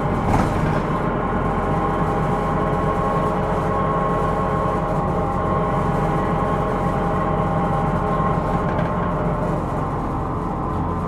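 Interior sound of a Hino Rainbow II (SDG-KR290J1) diesel bus under way: steady engine and drivetrain rumble with several high whining tones over it, from a bus labelled as having an abnormal noise. A single sharp knock about a third of a second in, and the sound eases slightly near the end.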